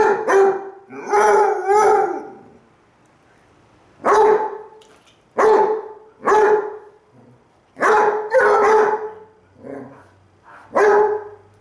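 Basset hounds howling back and forth in short baying calls, about nine in all. The call about a second in is longer and wavering, followed by a pause of nearly two seconds, and one call near the end is fainter.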